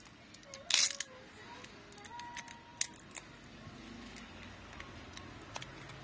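Small clicks and plastic rustling as a phone battery is handled and lifted in its plastic frame, with one louder crackling rustle just under a second in.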